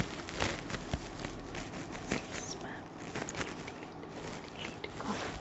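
Crisp gold tissue sari fabric rustling and crinkling as it is bunched and shaken out by hand, an irregular run of small crackles and clicks.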